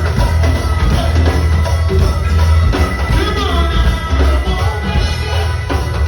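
Live go-go band playing, with heavy bass, a steady drum and percussion groove, and a voice singing over it.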